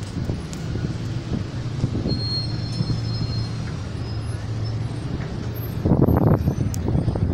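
Street traffic in a slow queue: cars and a city bus idling and creeping along, a steady low engine hum, with a louder surge about six seconds in.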